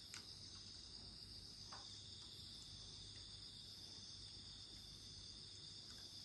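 Faint, steady high-pitched trilling of night insects such as crickets, with a few soft pops from a crackling wood campfire.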